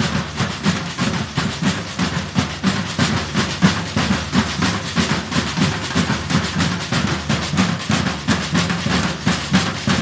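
Batucada-style drum group rehearsing a new rhythm: deep drum pulses under fast, crisp strokes, kept up at a steady rhythm.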